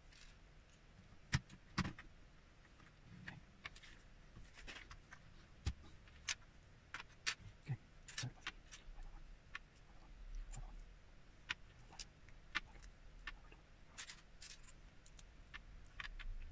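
Lego plastic pieces being handled on a table: irregular light clicks and taps as parts are picked up and set down, with two sharper knocks near the start.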